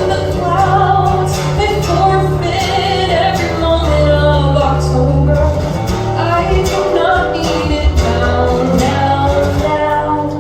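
A live performance of an original pop song: a singer singing a melody over instrumental accompaniment with sustained bass notes and a regular beat.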